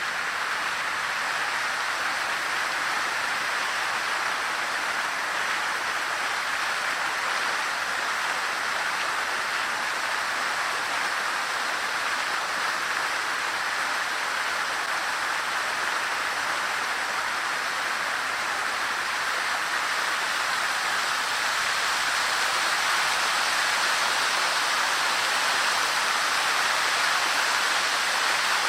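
Water from the Guardian of Water statue's fountain splashing steadily into its basin, growing a little louder about two-thirds of the way through.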